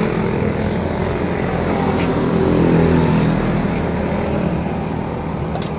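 A road vehicle's engine passing by, its low hum swelling to a peak midway and fading again, with a faint click about two seconds in and another near the end.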